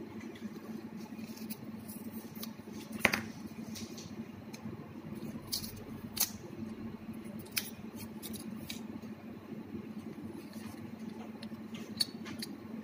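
Small clicks and crinkling as a coin-cell battery's paper-and-foil packet is torn open by hand, with a few sharper clicks, the loudest about three seconds in. A steady low hum runs underneath.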